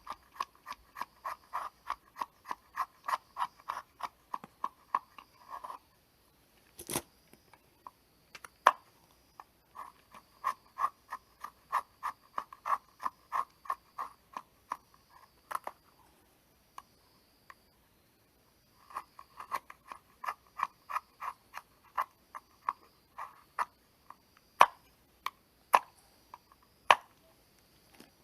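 Quick rhythmic scraping strokes of a blade, about three a second, in three runs of several seconds each, with single sharp clicks in the pauses.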